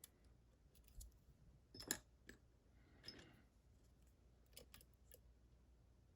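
Faint, sharp metallic clicks from a U-Shin Showa NX lock and picking tools being worked: a scattering of single clicks, the loudest about two seconds in, a short scrape just after three seconds, and a quick run of three clicks near the end.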